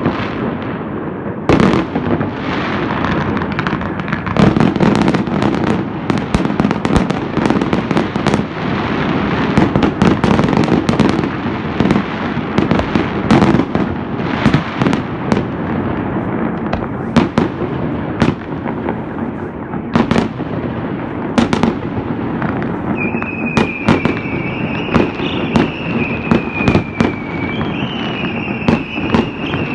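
Many fireworks going off at once: a dense, unbroken stream of sharp bangs and pops over a constant crackling din. From about two-thirds of the way in, a high wavering whistle rises above it and jumps up in pitch near the end.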